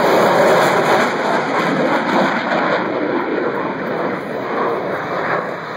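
Jet noise from an F-22 Raptor's twin Pratt & Whitney F119 turbofans as the fighter flies past and climbs away: a loud, even rumble that slowly fades.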